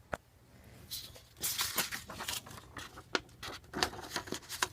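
A sheet of paper being handled and fed into a Royal Aristocrat manual typewriter: paper rustling and scraping against the machine, with a few short sharp clicks.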